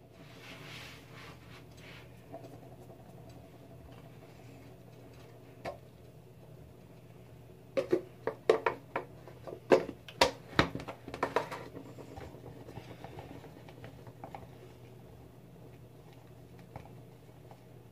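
A shampoo-and-cornstarch slime mix being stirred by hand in a container. A quick cluster of knocks and clinks of the stirring utensil against the container comes about eight to eleven seconds in, with soft rubbing sounds around it.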